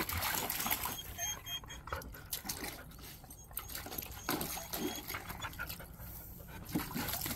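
Two dogs playing at close range: panting, snuffling and scuffling about in short, irregular noises.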